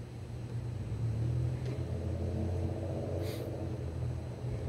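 Motor vehicle engine running with a low rumble that grows louder about a second in, then holds steady.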